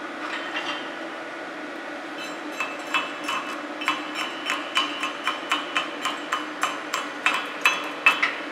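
Chipping hammer striking the slag off a freshly laid flux-cored weld bead on steel plate: a quick run of light, ringing metal-on-metal taps, about three a second, starting a couple of seconds in, over a steady low hum.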